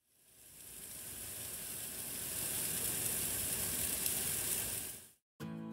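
Marinated chicken pieces sizzling on a hot barbecue grill, a steady hiss that fades in and cuts off about five seconds in. Acoustic guitar music starts just after.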